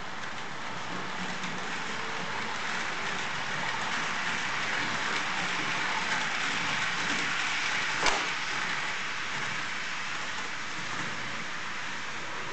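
Rolling noise of a TT-scale model train, a Tillig class 103 electric locomotive hauling IC coaches over the track and turnouts. It is a steady hiss that swells as the coaches pass close and eases as the train moves away, with one sharp click about eight seconds in.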